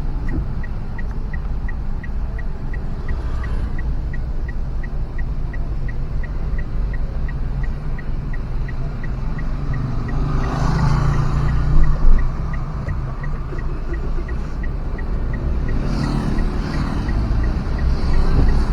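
Steady low rumble of a moving road vehicle, engine and road noise together, with a faint regular ticking about three times a second. It swells louder briefly around ten to twelve seconds in.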